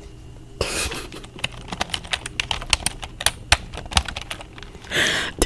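Fast, irregular typing on a computer keyboard: a dense run of sharp keystroke clicks that starts about half a second in, with a short hiss near the end.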